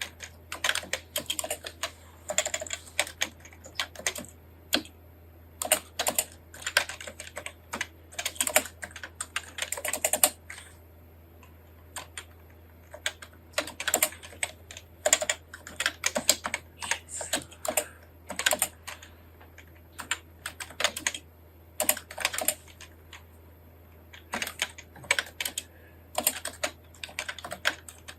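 Fast typing on a computer keyboard, Japanese kana input with the thumb-shift (NICOLA) layout: quick runs of keystrokes broken by short pauses, twice for a second or two. A steady low hum runs underneath.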